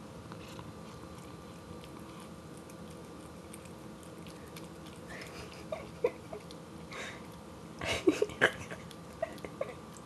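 A cat licking and smacking its mouth on sticky peanut butter: short wet clicks and smacks in irregular bursts from about halfway in, loudest in a cluster near the end.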